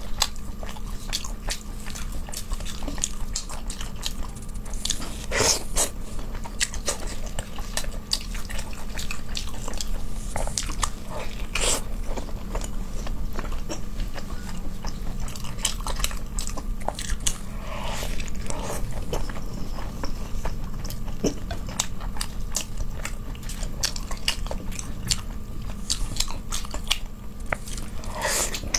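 Close-miked eating sounds: chewing and biting braised meat, pulled apart with plastic-gloved hands, with many scattered sharp clicks over a steady low hum.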